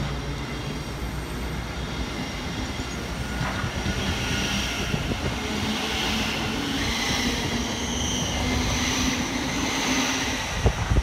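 Thameslink Class 700 electric multiple unit pulling away from the platform. The traction motors give a whine of several tones over the rumble of the wheels, and the whine climbs in steps as the train gathers speed.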